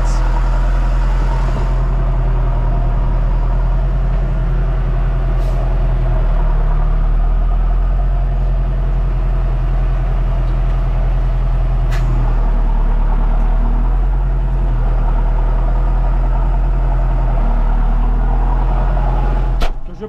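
Valtra tractor's diesel engine burbling steadily at low revs.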